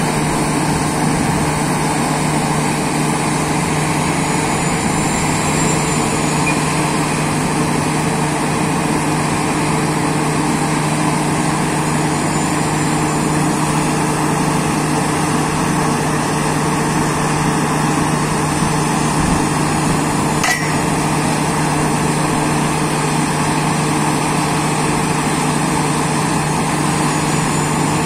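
Exploration drill rig running steadily, a constant engine drone with a steady hum. A single sharp metallic click comes about twenty seconds in.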